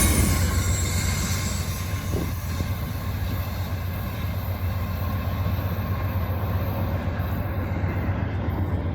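Fast freight train going by and moving away, its rear distributed-power diesel locomotive working hard. The loud rail and wheel noise falls off within the first second, leaving a steady low diesel rumble that fades slowly.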